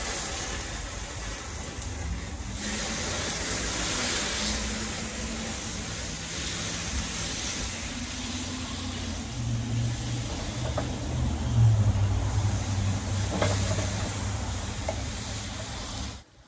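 Ground meat sizzling hard in a pan over a gas grill, with the rush of flames flaring up out of the pan and a few light spatula clicks. The sound cuts off abruptly near the end.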